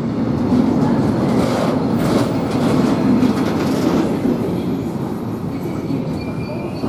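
Intermodal freight train's wagons rolling past with a steady rumble and wheels clicking over the rail joints. A faint high wheel squeal comes in near the end.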